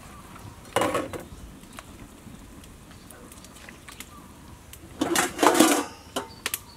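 Pieces of fish put into a pot of water, splashing twice: briefly about a second in, then for longer about five seconds in.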